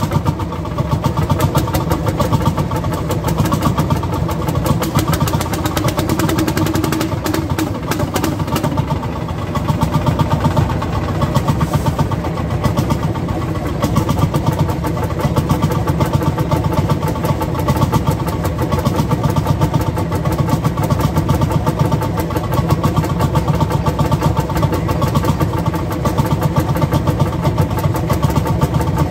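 Vintage hot-bulb tractor engine idling with a steady, rapid, even thumping beat.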